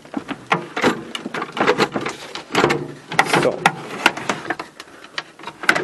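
Metal tool chest drawer being slid in and out on its tracks, rattling and clicking irregularly. The drawer is still binding near the end of its travel even with its tracks freshly lubricated with automatic transmission fluid.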